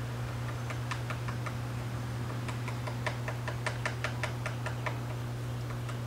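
Red-bellied woodpecker tapping with its bill inside its nest cavity, excavating wood: a few light taps about a second in, then a longer run of quick taps, roughly four to five a second, until near the end. A steady low hum runs underneath.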